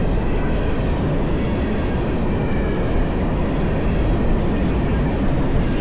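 Fast-moving freight train passing close by: a steady, loud rushing rumble of cars rolling over the rails.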